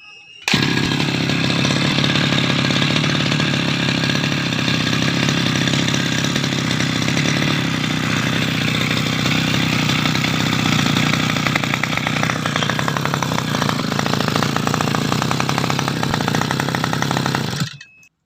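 Tasco brush cutter's small engine starting and running steadily at a fast, even speed, then cutting off suddenly near the end. This is a test run after its drive shaft and shaft bearings were replaced.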